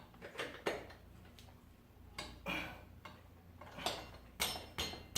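Light metal clicks and clinks, about eight at irregular spacing, as a wheel spacer and the hub parts of a motorcycle's rear wheel are fitted together by hand.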